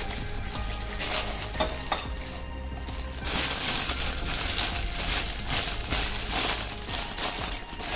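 Clear polythene bag crinkling and rustling as it is handled and stretched down over a steel tumbler, in repeated crackly bursts.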